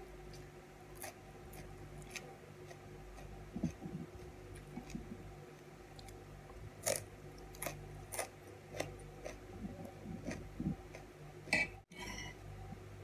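Close-up chewing of crisp peeled cucumber: irregular wet mouth clicks and short crunches, over a steady low hum. Near the end, a brief scrape of a fork on the plate.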